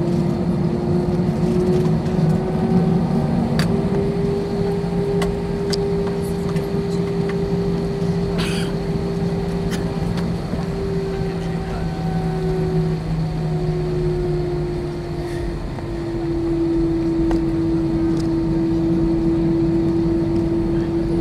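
Airbus A319-111's CFM56 jet engines at taxi power, heard from inside the cabin over the wing: a steady drone whose pitch drifts slightly up and then back down, with a few light clicks.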